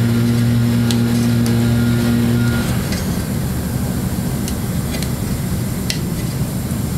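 A steady machine hum cuts off about two and a half seconds in, leaving a rough low rumble. Under it come a few faint clicks and scratches of fingernails picking a torn sticker off a plastic recoil-starter cover.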